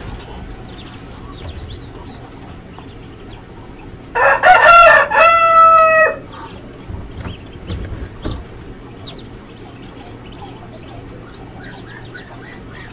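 A rooster crows once, loudly, about four seconds in: a two-second call ending in a long held note. Faint peeping of ducklings runs underneath.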